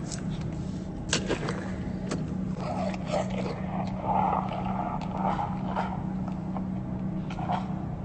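Baby common hippopotamus mouthing and chewing strawberry jelly: wet lip and mouth noises with a few sharp clicks, over a steady low hum.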